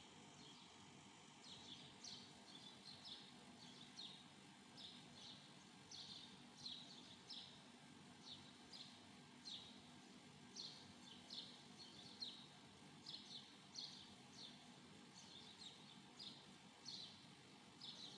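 Faint, repeated chirping of a small bird, short high chirps every half second to a second, over a low steady hiss.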